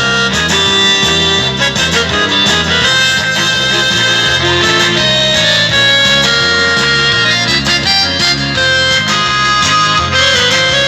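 Instrumental passage of a pop song without singing: a steady, pulsing bass beat under a melodic lead line.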